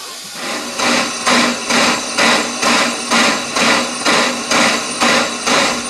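New-build Corris Railway No 10 narrow-gauge steam locomotive chuffing, steady exhaust beats about twice a second that start about half a second in.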